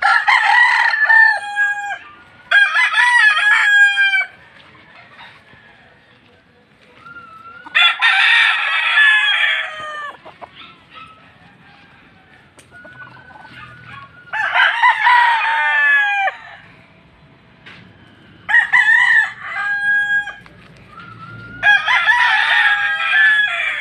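Several tethered gamecocks crowing in turn, about six loud crows spread across the stretch, some with two birds overlapping.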